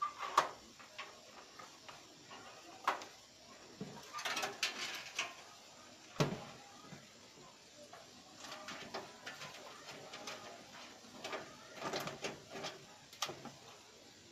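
Hands handling parts inside a steel desktop computer case: irregular clicks, knocks and light scrapes of metal and plastic, with a sharper knock near the start and another midway.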